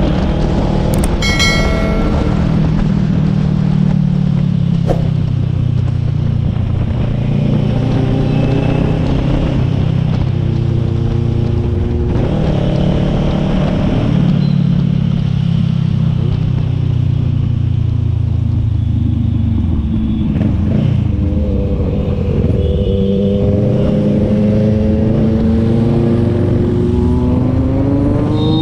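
Sport motorcycle engine heard from the saddle at road speed, with rushing wind. The revs rise and fall with throttle changes, drop about two-thirds of the way through, then climb steadily toward the end. A brief high tone sounds about a second and a half in.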